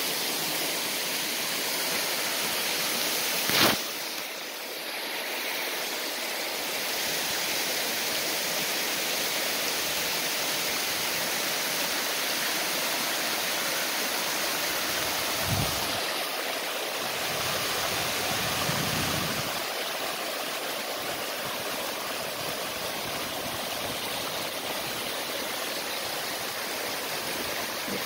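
Creek water cascading over rocks at the top of a waterfall: a steady rushing flow. A sharp knock cuts through it about four seconds in, and a dull thump comes a little past the halfway mark.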